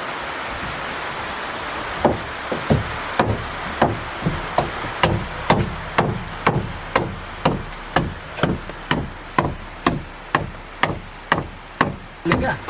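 Steady knocking strikes, like chopping or pounding, about two a second, beginning about two seconds in.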